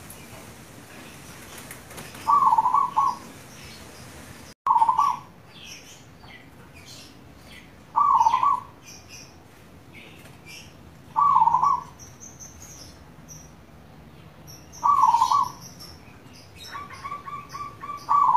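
Zebra dove (perkutut) cooing: a short rolling coo repeated about every three seconds, six times, with a quick run of short notes just before the last one. Faint chirps of small birds in the background, and the sound cuts out for an instant just before the second coo.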